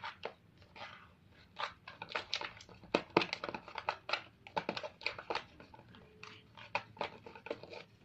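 Slime mixture of glue, shaving gel and colouring being stirred, with quick, irregular wet squelches and clicks, several a second.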